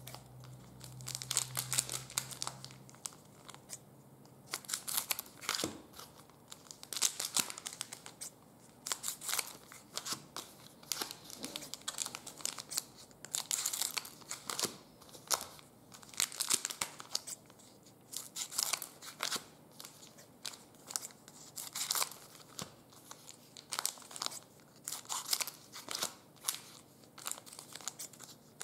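Trading-card pack wrappers being handled and torn open, giving a long run of irregular crinkling and crackling.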